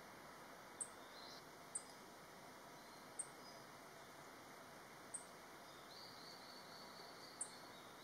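Black-faced bunting giving single short, thin, high-pitched call notes, five of them at irregular intervals of about one to two seconds, over a faint background hiss. A fainter, longer high note comes near the end.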